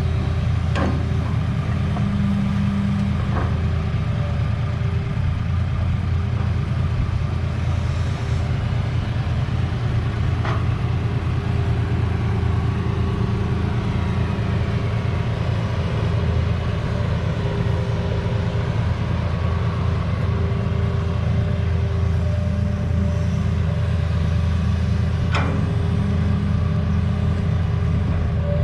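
Diesel engine of a Hitachi ZX200 excavator running steadily under load while it loads soil into a dump truck, with a few short sharp knocks spread through.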